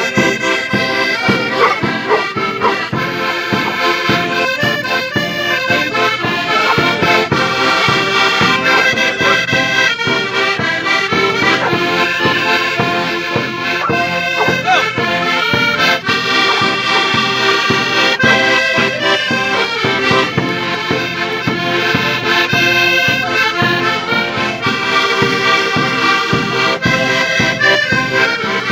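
Several diatonic button accordions playing a lively traditional folk tune together, with a bass drum struck with a stick keeping a steady beat.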